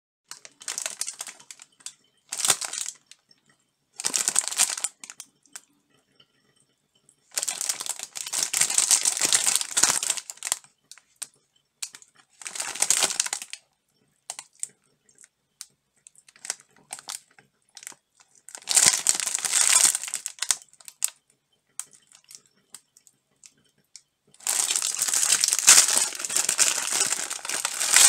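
Crinkly plastic wrapper of a packet of cookies rustling in bursts of a few seconds as it is handled and turned, with quiet pauses between. In the long last burst, near the end, the wrapper is torn open.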